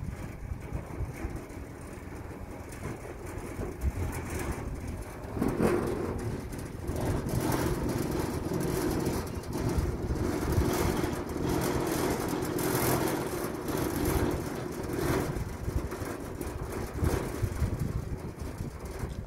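Ride in an open bucket cable lift: wind buffeting the microphone over a low mechanical rumble. A steady hum joins about five seconds in and fades near the end.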